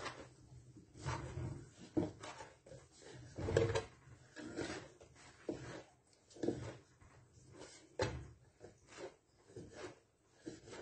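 Pizza dough being kneaded by hand in a basket-weave wooden bowl: dull knocks and rubbing as the dough is pressed and folded against the wood, coming irregularly about once a second. The dough has been worked until it no longer sticks.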